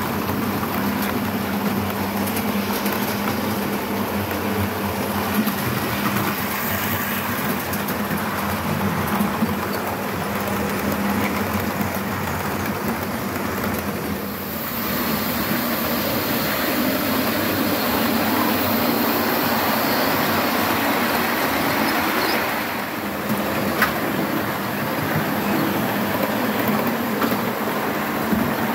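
Model trains running on a model railway layout: the steady whirr of their motors and the rumble of wheels on the track.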